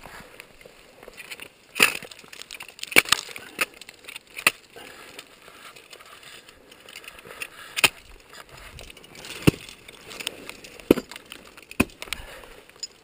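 Ice axe picks swung into frozen waterfall ice: about seven sharp strikes at irregular intervals of a second or two, with ice crunching and breaking away.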